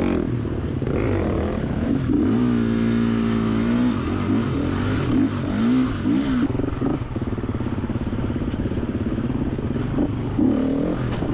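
Gas Gas 350 dirt bike's single-cylinder four-stroke engine running on a rough trail. Its pitch holds steady for a couple of seconds, then rises and falls again and again as the throttle is opened and closed.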